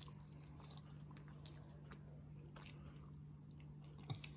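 Faint chewing of a soft mouthful of stuffed sweet potato and jerk chicken with closed lips, with scattered small wet mouth clicks over a low steady hum.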